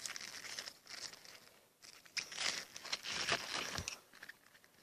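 Scissors cutting open a squishy toy made of rubber balloons, with crinkling and tearing of the balloon skin, louder and busier from about two seconds in.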